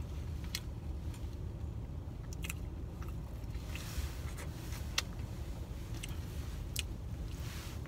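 A person biting into and chewing a bacon, egg and cheese breakfast sandwich close to the microphone, with scattered short mouth clicks. A steady low rumble runs underneath.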